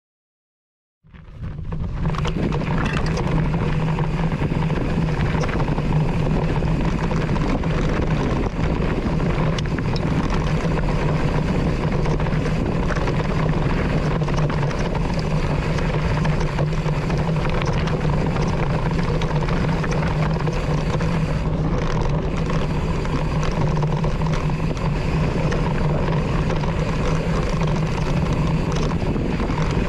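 Riding noise from a mountain bike descending dirt singletrack: wind rushing over a handlebar-mounted GoPro Hero8's microphone together with the tyres rolling and the bike rattling, a steady rushing rumble that starts about a second in.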